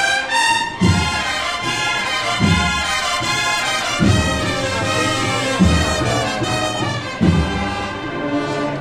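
Cornet-and-drum processional band (banda de cornetas y tambores) playing a Holy Week march: massed cornets sound the melody over heavy bass-drum strokes about every second and a half.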